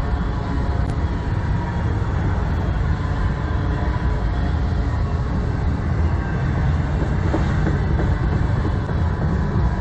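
Autorack freight cars rolling past: a steady rumble of steel wheels running on the rails.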